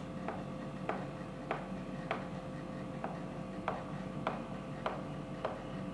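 Chalk tapping on a chalkboard while small dots are drawn, a sharp tick at an even pace of a little under two a second.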